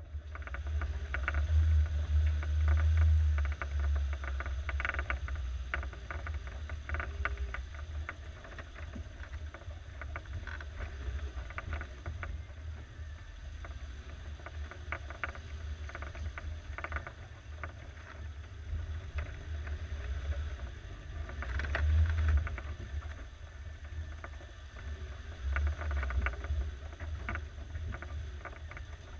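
Suzuki SJ413's 1.3-litre four-cylinder engine rumbling at low revs as the jeep crawls over rocks in low range. The rumble swells a few seconds in and again about two-thirds through, with scattered knocks and clunks from the body and suspension.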